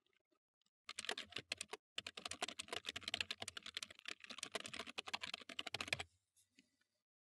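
Typing on a computer keyboard: a fast run of key clicks starts about a second in, breaks off briefly, then runs on until about six seconds in.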